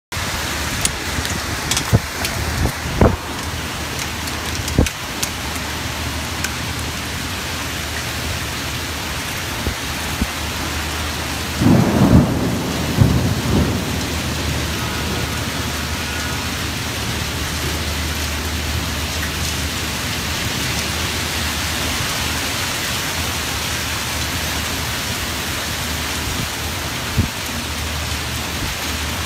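Heavy storm rain with wind: a steady rushing hiss over a constant low rumble. There are several sharp knocks in the first five seconds, and a louder burst of low rumbling about twelve seconds in.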